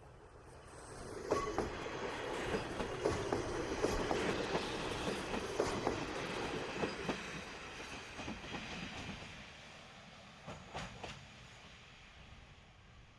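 Two-car Kominato Railway KiHa 200-series diesel railcar train running past, its wheels clacking sharply over rail joints. It builds about a second in and fades after about nine seconds, with a few last clicks near the end.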